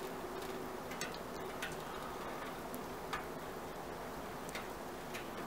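Soup simmering in a pot on a wood stove: a steady soft hiss with small irregular pops and ticks.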